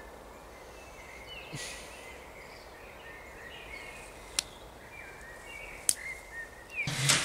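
Outdoor ambience: a steady background hiss with faint bird chirps now and then. Two sharp clicks come in the second half, and a brief loud rustling burst near the end.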